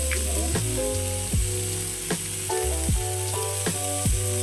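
Filet mignon steaks searing in hot oil in a frying pan, a steady sizzle. Background music with a bass line and a regular beat plays along with it.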